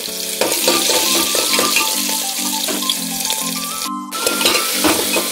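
Sliced onions sizzling in hot oil in an aluminium pressure cooker, then lentils and chillies sizzling in the oil, with background music throughout. The sound breaks off for an instant near the middle.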